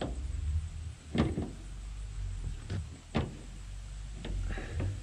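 Metal knocks from a double cardan drive shaft's U-joint and yoke being worked into place by hand: three sharp clunks, the first the loudest, then a run of lighter ticks near the end, over a low steady hum.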